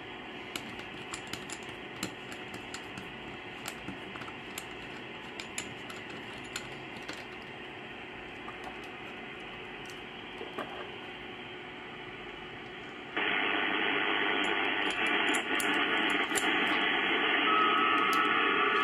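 Static hiss from a uSDR HF transceiver's receiver over its speaker: steady and cut off in the treble, with small clicks from connectors being handled. About thirteen seconds in the hiss jumps sharply louder, and near the end a steady whistle tone joins it.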